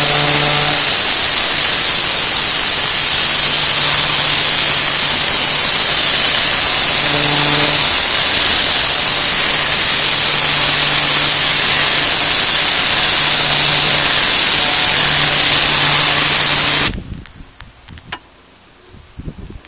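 Pressure washer wand spraying a high-pressure water jet onto a brick wall: a loud, steady hiss with a low hum underneath. The spray cuts off suddenly about seventeen seconds in, leaving only faint ticks.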